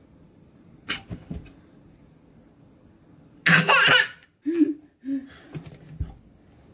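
A small child laughing in short bursts, the loudest a peal about three and a half seconds in, then a few smaller giggles.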